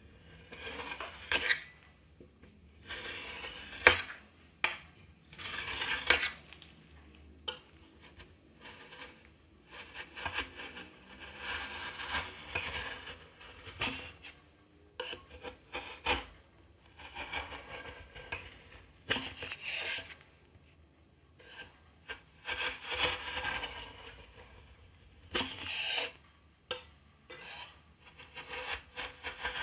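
Metal spatula scraping across a frozen metal cold plate, pushing a thin sheet of ice cream up into rolls. It comes as repeated scrapes of a second or two, with a few sharp clicks of metal on metal in between.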